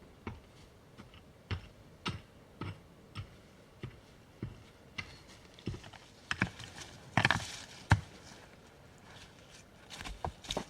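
A run of short, sharp knocks at about two a second. Then a denser cluster follows, with a longer crunching noise and one loud knock a little before the end, and a few more knocks near the end.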